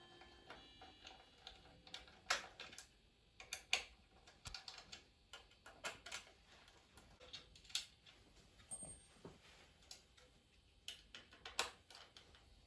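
Quiet, irregular light clicks and taps of parts and tools being handled while a Kirby vacuum cleaner is stripped down for servicing.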